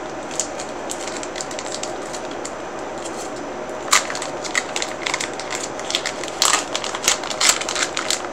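Foil Pokémon booster pack wrapper crinkling and crackling in the hands, in quick irregular crackles from about four seconds in; before that, softer rustling of cards being handled.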